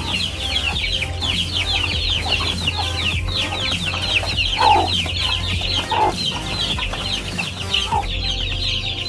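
Chickens clucking as they crowd a feed trough, a few single clucks standing out midway, over a steady, fast, high-pitched chirping.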